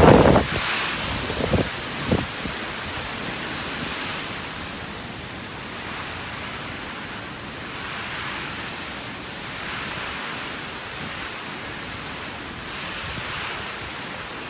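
Typhoon wind blowing in gusts that swell and ease every few seconds, with wind buffeting the microphone. A loud brief burst comes right at the start, and two short thumps follow in the first couple of seconds.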